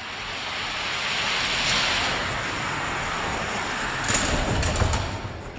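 Die-cast Hot Wheels cars rolling down a long plastic drag track, a rushing whir that builds over the first couple of seconds, with a burst of clacks and thumps about four to five seconds in as the cars reach the bottom and finish.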